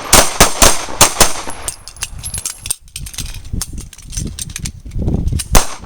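A line of pistol shooters firing on command: a ragged string of handgun shots, many in quick succession for the first two seconds, then thinning out, with one more loud shot near the end.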